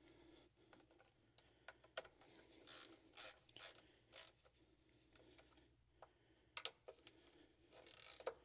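Faint, irregular clicks and light scrapes of hand tools and small metal and plastic parts as ignition coil packs are being refitted on the engine.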